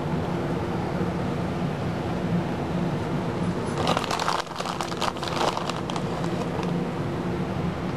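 A steady low machine hum, with a few seconds of crinkling and rustling clicks in the middle.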